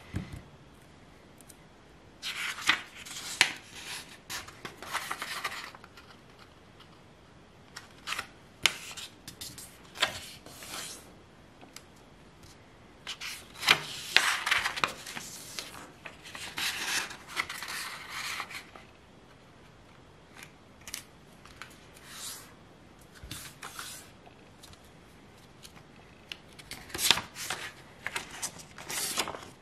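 Square sheet of white paper being folded by hand: crisp rustling and crackling in several bursts of a few seconds each, with sharp clicks as the folds are pressed down, and quiet gaps between the bursts.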